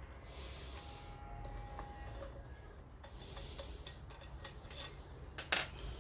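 Faint scattered clicks and taps of small metal fan parts and tools being handled during disassembly, over a low background hum, with one sharper click about five and a half seconds in.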